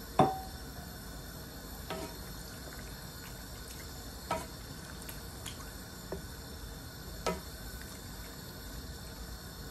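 Wooden spatula stirring a watery spinach and fish curry in a nonstick wok, the liquid sloshing, with a few sharp knocks of the spatula against the pan. The loudest knock comes right at the start, over a steady low hiss.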